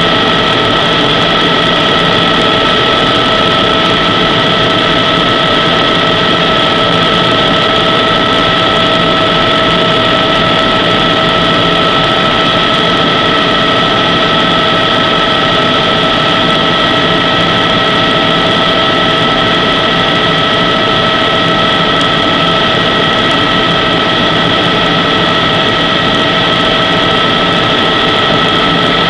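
Helicopter's turbine engine and rotors running steadily in flight, heard from inside the cabin: a loud, even drone with a steady high whine over it.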